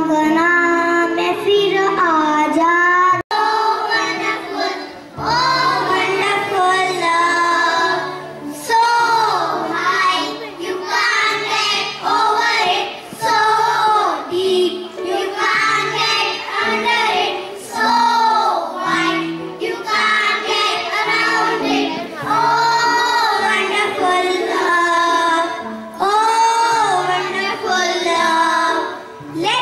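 Young children singing a song into microphones over a recorded backing track with a steady bass line. A single girl's voice first, then, after a brief break about three seconds in, a group of children singing together.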